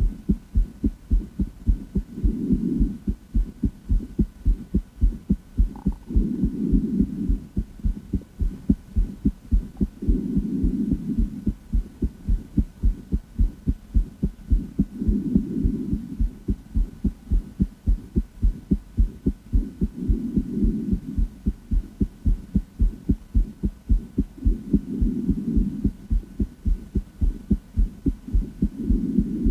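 A woman's heartbeat heard through a stethoscope: a steady, regular train of low, dull thumps. A low hum swells and fades about every four to five seconds.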